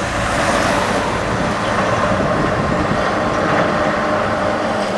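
A Tatra KT4D tram approaching along its track with steady rolling noise, mixed with road traffic, a car passing close by near the start.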